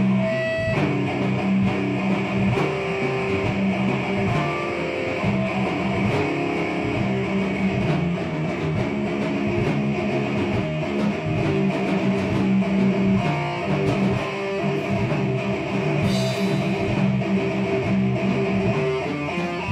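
Instrumental rock jam: electric guitar and bass guitar playing held notes that change every second or so.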